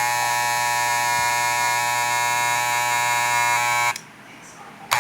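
Electric hair clipper buzzing steadily as it is test-run after cleaning and oiling, running well now. It is switched off about four seconds in, then briefly switched on again near the end.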